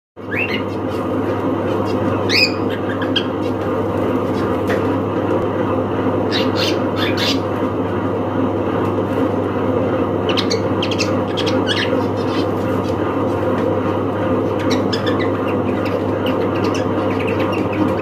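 Cockatiels calling: short chirps and squawks, some rising in pitch, come in scattered bursts over a steady low background hum.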